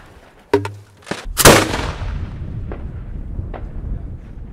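Mortar launch of a 125 mm Italian Corolla Red Strobe aerial shell: a few small clicks, then one sharp loud bang about a second and a half in as the lift charge fires the shell out of the tube. A long rumble follows, with scattered faint pops.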